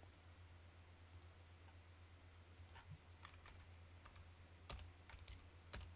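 Faint computer keyboard keystrokes: a handful of separate key clicks, mostly in the second half, over a low steady hum.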